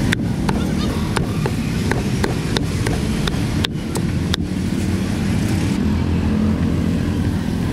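Steady low rumble of street traffic, with scattered light, sharp clicks over it.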